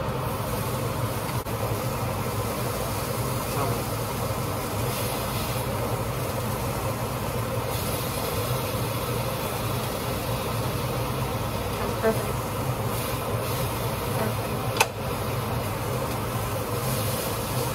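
Steady hum of a kitchen range hood exhaust fan running over the stove while food cooks in a pan and a pot below. Two short sharp clicks sound in the last third.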